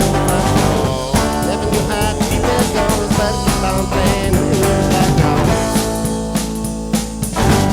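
Rock band playing an instrumental passage: drums keeping a steady beat under electric guitar and bass, with a bending lead guitar line that gives way to plainer chords about six seconds in.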